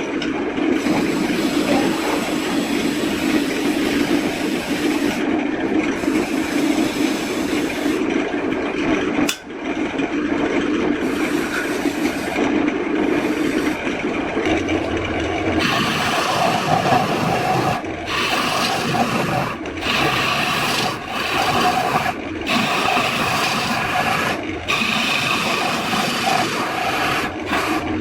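Continuous rasping and rubbing on wood, as of a workpiece being filed or sanded. About halfway through the sound turns brighter and higher, with short breaks between strokes.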